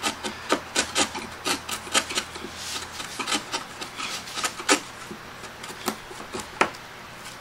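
Chisel held bevel-up and pushed by hand through wood, paring waste from the cheek of a lap joint down toward its baseline: a string of short scraping, splitting strokes, a couple or more a second, with a few louder ones in the second half.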